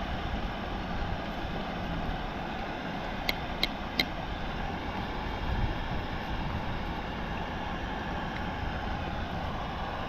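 Steady rushing of river water, with three light clicks about three to four seconds in.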